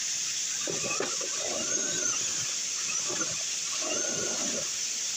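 Electric motor of an RC rock crawler whining in three short bursts of throttle, pitch rising and falling each time, as the truck strains at a rock climb it does not make. A steady rush of water runs underneath.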